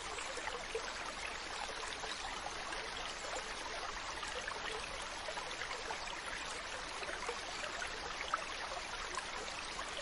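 Stream water running steadily: an even rush flecked with many small splashes and trickles.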